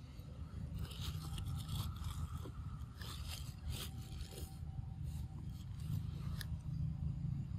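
Long-tailed macaques biting and chewing fruit close to the microphone: a run of crisp bites and scrapes between about one and five seconds in, over a steady low rumble.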